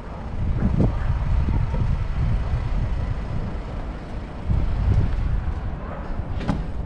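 Wind buffeting the camera microphone: a low, uneven rumble that swells about a second in and again around four and a half seconds, with a short sharper knock near the end.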